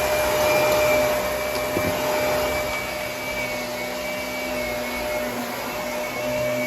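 Vacuum cleaner running, a steady roar with a constant motor whine, a little louder in the first second.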